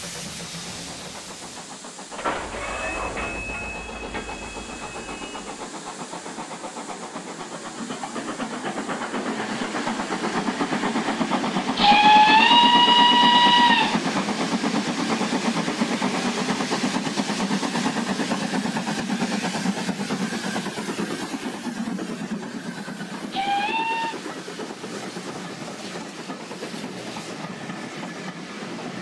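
Steam locomotive running with a steady hiss of steam, growing louder, then one steam whistle blast of about two seconds that slides up in pitch as it opens. A short second whistle toot comes near the end.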